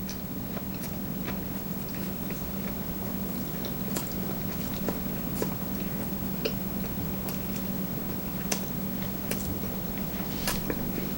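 A person chewing a big mouthful of sushi roll close to the microphone, with many short wet mouth clicks and smacks scattered through. A steady low hum runs underneath.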